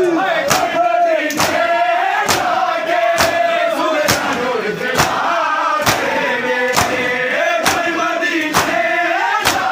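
Crowd of mourners performing matam, beating their chests with their hands in unison: a sharp slap about once a second. Men's voices chant a lament in time with the beat.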